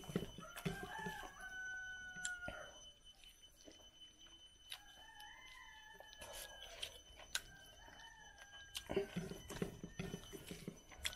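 A rooster crowing three times, the first two crows each about two seconds long and the third shorter, with light clicks of fingers against a steel plate between them.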